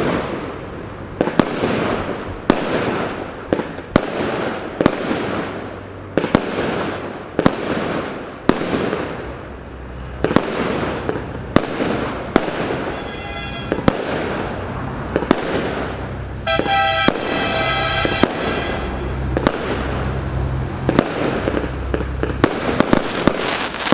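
A multi-shot fireworks cake (FC2549 battery) firing shot after shot. It gives a sharp bang a little more than once a second, each followed by crackling, and the shots come in a quicker cluster near the end. Twice a steady pitched whistle sounds over the shots: briefly near the middle, and for about two seconds later on.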